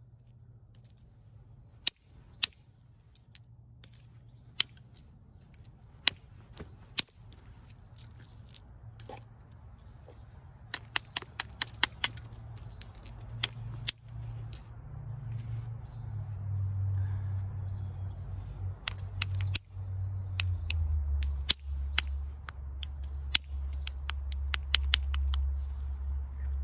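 Copper-tipped bopper striking the edge of a large stone biface in flint knapping: dozens of sharp, irregular clicks and taps, bunching into quick runs in the second half. A low rumble grows louder about two-thirds of the way in.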